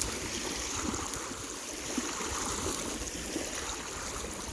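Small waves lapping and trickling against a rocky lake bank, an irregular steady wash of water.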